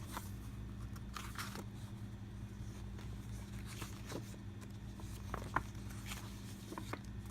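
Faint rustles and light taps of board game components (rule book paper and cardboard tiles) being handled, a few separate small clicks over a steady low hum.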